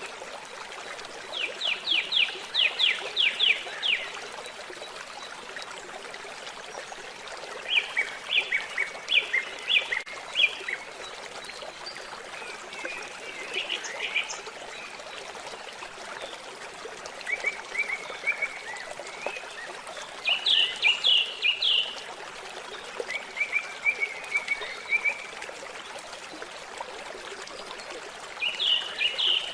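A songbird singing short phrases of rapid repeated notes, about seven of them a few seconds apart, over the steady trickle of running water.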